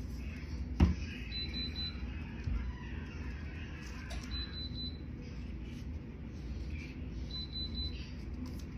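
Tumbler heat press beeping: a short high beep repeating about every three seconds, its signal that it is up to temperature. Sublimation paper rustles as it is handled around a tumbler, and a sharp knock about a second in is the loudest sound.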